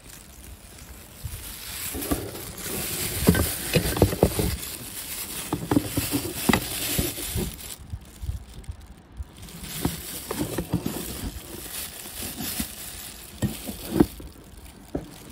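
Composite fiberglass toe caps clacking and knocking against one another as they are handled in a cardboard box, with plastic wrapping rustling. The knocks come irregularly in two busy spells, with a short lull in the middle.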